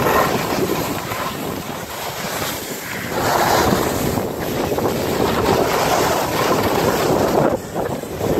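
Wind rushing over the microphone of a camera carried by a skier in motion, mixed with the hiss and scrape of skis on packed snow. The rush swells and eases, with a brief dip near the end.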